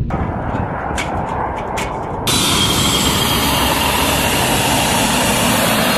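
Steady aircraft engine noise on an airfield flight line, an even rushing sound with a few clicks early on. About two seconds in it jumps louder and brighter.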